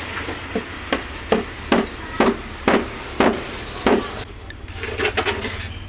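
Hammer striking the wooden subwoofer box as a side panel is fixed on, about eight blows roughly half a second apart that stop about four seconds in.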